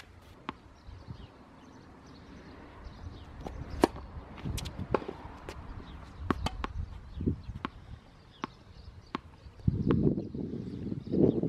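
Tennis ball knocking on a hard court and popping off racket strings, in scattered single hits a second or more apart. A louder rushing noise comes in near the end.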